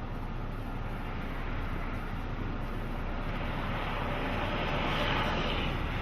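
Steady rushing noise, growing a little louder about halfway through.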